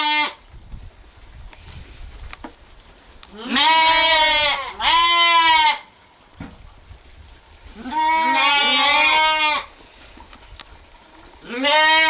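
Lambs bleating in quavering calls. A bleat trails off just after the start, two follow back to back about three and a half seconds in, a longer one comes about eight seconds in, and another starts right at the end.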